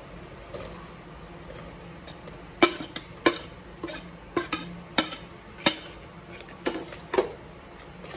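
Metal spoon knocking and clinking against a plate and a steel pot: about nine sharp, irregularly spaced clinks, starting about two and a half seconds in, as food is scraped off the plate and stirred in the pot.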